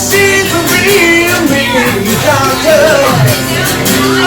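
Rock music playing loudly, with a voice singing over it.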